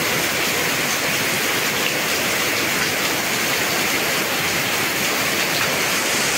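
Very heavy rain falling on paving, a wall and garden leaves: a loud, steady, dense hiss that holds even throughout.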